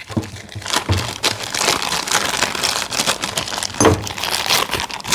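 Plastic wrapping crinkling and crackling as it is handled, with scattered sharp clicks.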